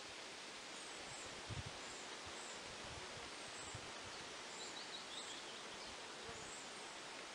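Outdoor nature ambience: a steady rustling hiss with small birds' high, thin chirps about once a second and a quick run of bird notes about five seconds in. A soft low thump about a second and a half in.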